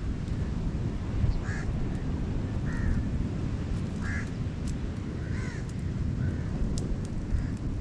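Short, harsh bird calls repeating about once a second over a steady low rumble.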